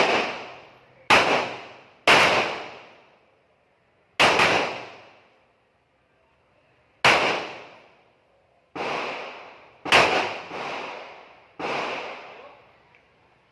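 Handgun shots fired on a range: about eight sharp reports at uneven intervals, some a second apart and some several seconds apart, two close together near the end, each trailing off in a short echo.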